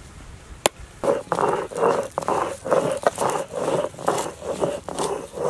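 A single sharp knock of a billhook blade striking a coconut, then a steady rhythm of rasping, scraping strokes, about three a second.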